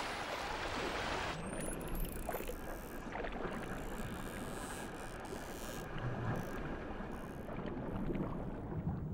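Open-sea noise of choppy water and splashing. About a second and a half in it cuts to muffled underwater ambience, a low rumble with a few faint high rising glides and clicks.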